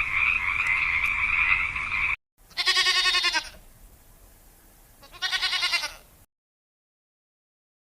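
A steady frog chorus that cuts off abruptly about two seconds in, followed by two separate bleats, each just under a second long with a rising-then-falling pitch, about two and a half seconds apart.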